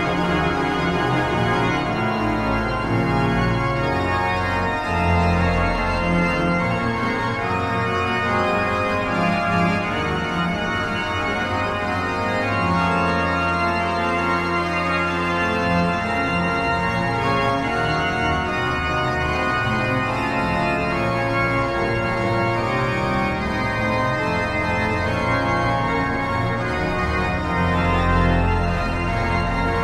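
Pipe organ playing sustained chords over a deep pedal bass.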